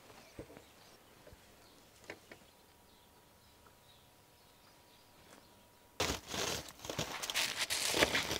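A few faint clicks from the metal door of a wood-fired dome oven. About six seconds in comes a sudden, loud crinkling of aluminium foil as a foil-wrapped roast on a metal baking tray is drawn out of the oven.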